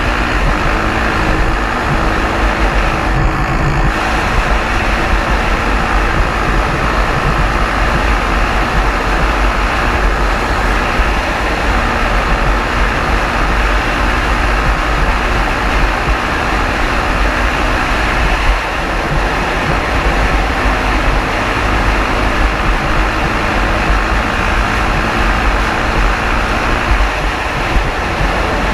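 2001 KTM 520 EXC's single-cylinder four-stroke engine running hard at speed, heard from on the bike, mixed with heavy wind rush over the microphone. The sound is loud and steady, with one brief dip about two-thirds of the way through.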